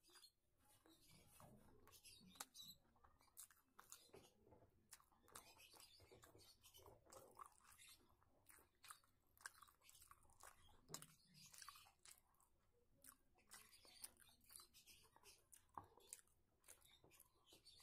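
A person chewing food, faint, with many small mouth clicks and smacks of lips and tongue.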